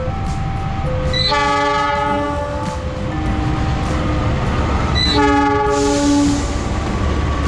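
Diesel-electric locomotive's air horn sounding two blasts, the first about a second and a half long and the second about a second, over the low rumble of the passing passenger train.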